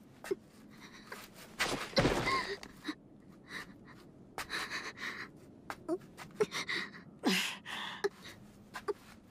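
A young woman's pained gasps and short, labored breaths as she struggles up from the ground, badly hurt. A loud rushing burst of noise comes about two seconds in.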